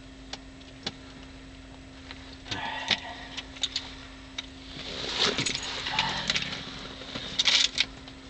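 Scattered clicks, metallic jingling and rustling of fishing gear being handled while a landed catfish is readied for weighing on a scale, busiest in the second half, over a steady low hum.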